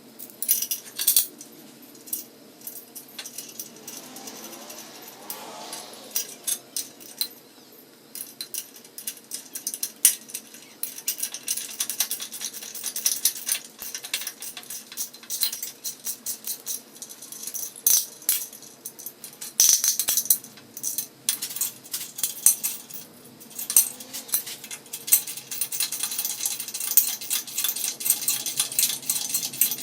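Irregular metallic clicks, clinks and rattles of metal parts and tools being handled.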